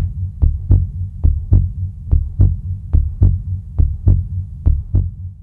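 Heartbeat sound effect: paired low thumps, lub-dub, repeating steadily about once every 0.85 s over a low steady hum.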